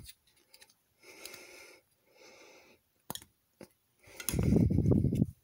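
Two soft breaths near the microphone, then a sharp click, plausibly plastic building-figure parts snapping together, and a louder low rumble for the last second or so.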